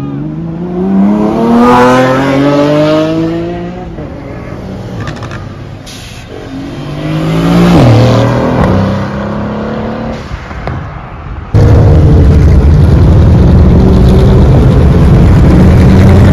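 Sports-car engines accelerating past one after another. First a white Lamborghini's engine rises steadily in pitch for a few seconds, then a Mercedes-AMG GT's twin-turbo V8 passes about eight seconds in, its pitch dropping sharply as it goes by. From about eleven seconds in a loud, steady engine rumble runs close by.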